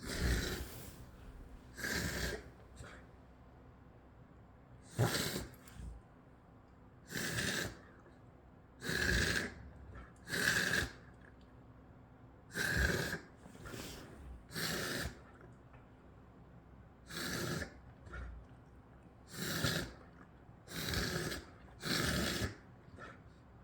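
Coughing: about a dozen short separate coughs, one every second or two, with brief quiet between them.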